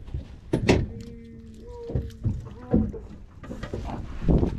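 Scattered thumps and knocks on a boat deck as a Spanish mackerel is worked free of a landing net and lifted by hand, with a brief low steady hum about a second in.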